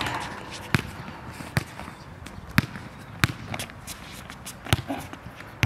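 A basketball bouncing on a hard outdoor court, five or so sharp bounces at uneven spacing, roughly one a second, with lighter taps between.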